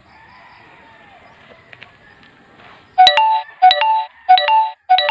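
Faint background for about three seconds, then four loud electronic chime notes about two-thirds of a second apart, each starting suddenly, the last one held on: a synthesized jingle or ringtone-like melody.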